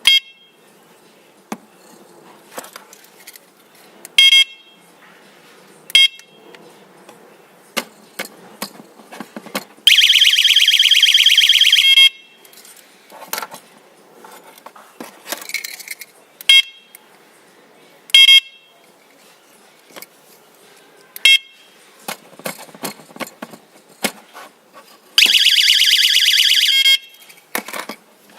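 Motorcycle alarm siren giving several short, high-pitched single chirps, and twice sounding its loud, rapidly pulsing alarm tone for about two seconds. Faint clicks are heard between them.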